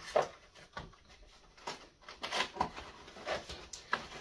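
Cardboard packaging being handled and opened: a string of short, irregular scrapes and rustles.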